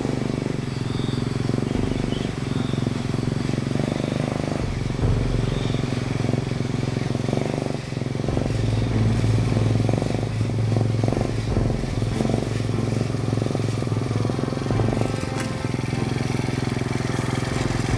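Motorcycle engine running steadily at low speed, with a change in its low note about eight seconds in.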